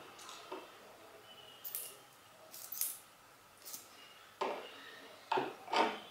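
Short, sharp paper crinkles and rustles as a small craft leaf is picked up and handled. Near the end come three louder pats of fingertips pressing the leaf down onto a handmade-paper card.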